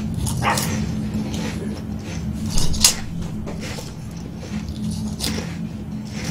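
Close-miked crunching and chewing of Kkobuk Chip, a layered corn snack: a run of short, crisp crunches, the loudest a little under three seconds in, over a steady low hum.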